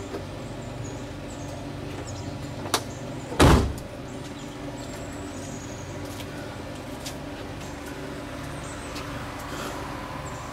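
A Chevrolet Corvette's long front hood is slammed shut about three and a half seconds in, a single loud thud just after a lighter click. A steady low hum runs underneath.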